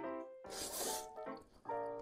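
Background music of short, steady pitched notes, with a brief hissy eating noise over it about half a second in.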